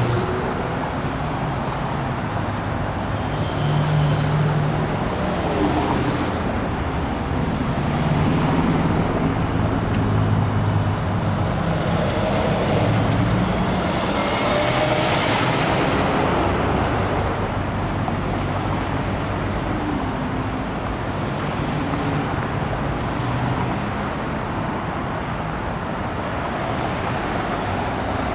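Steady highway traffic: cars and trucks passing close by at speed, tyre and engine noise swelling and fading as each one goes by, over a low engine hum.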